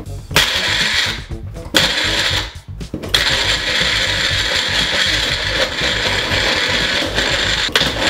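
Magic Bullet personal blender motor pulsed twice briefly, then run continuously from about three seconds in, chopping strawberries and banana into a smoothie.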